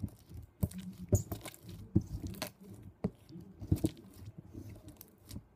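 Homemade white-glue slime being kneaded and pressed by hand on a metal tray, giving irregular sharp sticky clicks and pops.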